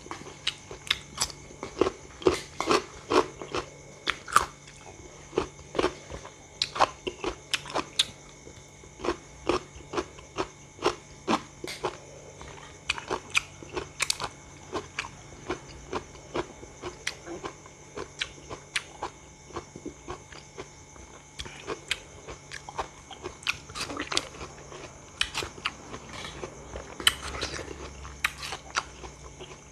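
Close-up eating sounds: bites and chewing of crisp raw fruit, with irregular sharp crunches one to a few times a second.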